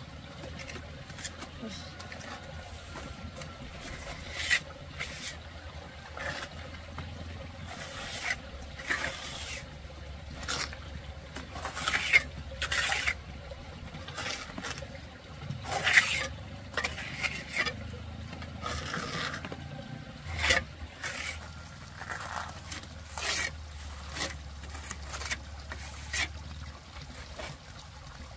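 Plastering float scraping and rubbing over wet cement render in irregular strokes, some sharper and louder than others, over a steady low hum.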